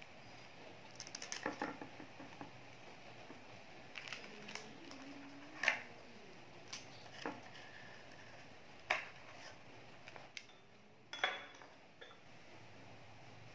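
Scattered short clicks and clinks of kitchen utensils and dishes being handled and set down, about ten separate knocks at uneven intervals.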